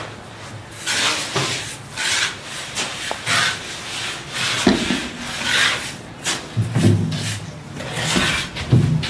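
Hand trowel scraping and smoothing wet cement render across a wall in repeated, irregular strokes, with a few low knocks near the end.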